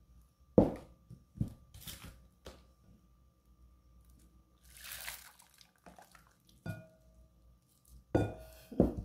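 Liquid mixture poured from a plastic pitcher through a small plastic funnel into a geladinho bag, with a brief run of pouring liquid about five seconds in and several sharp knocks, loudest just after the start and near the end.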